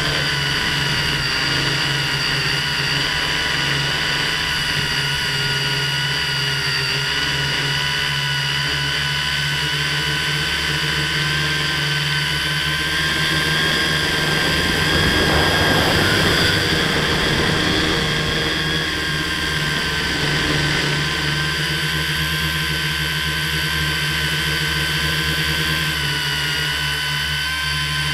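FPV model aircraft's motors and propellers, heard through its on-board camera, giving a steady high-pitched whine over a low hum. The pitch shifts slightly with the throttle. About halfway through there is a brief rush of wind noise.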